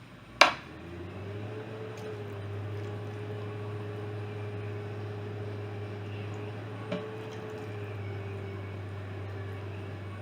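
A sharp click, then an appliance starts and runs with a steady low hum, like a microwave oven heating. A second, smaller click comes about seven seconds in.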